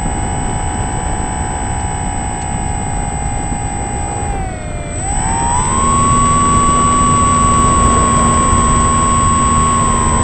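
A motor whining steadily over a low rumble. About halfway through the whine dips, then climbs and holds at a higher pitch, as when the throttle is opened.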